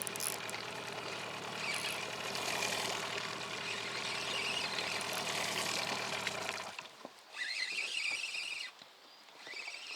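Hidea 9.9 outboard motor running steadily, then shut off about seven seconds in, after which only faint sounds remain.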